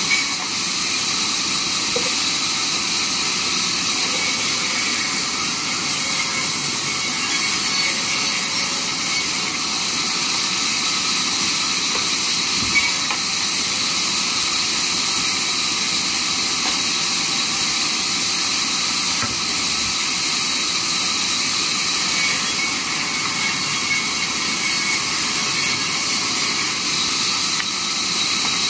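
Large vertical band saw running as boards are pushed through its blade to rip them into strips: a steady hissing sawing noise that keeps an even level throughout.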